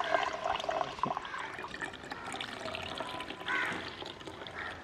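Sol kadhi, a thin kokum and coconut-milk drink, poured in a stream into a glass tumbler, with a trickling, splashing sound. Crows caw in the background.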